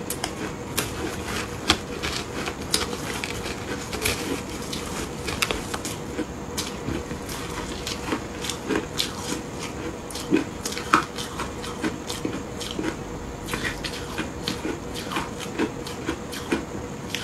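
Close-up crunching and chewing of frozen ice blocks coated in matcha and milk powder: a steady run of irregular sharp crackles as the ice breaks between the teeth.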